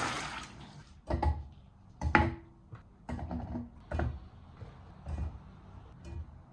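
A series of light knocks and clatters, roughly one a second, as objects are handled and set down.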